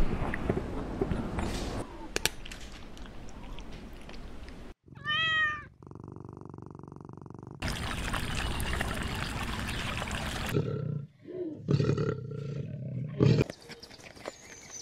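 A sequence of animal clips rather than one sound: the clearest is a cat's single meow about five seconds in, rising then falling in pitch. A stretch of even water-like noise follows where a duck dips its bill in a stream.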